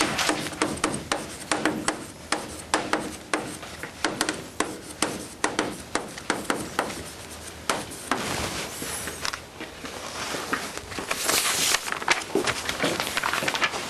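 Chalk on a blackboard: a quick run of sharp taps and scratchy strokes as symbols are written.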